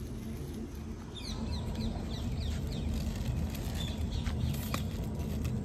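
Short, high chirping calls, each falling in pitch, several a second, over a steady low hum.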